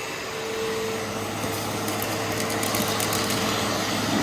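Hoover Elite Rewind upright vacuum cleaner running steadily while vacuuming, its motor giving a steady whine over a rushing hum, with light ticking from about a second and a half in.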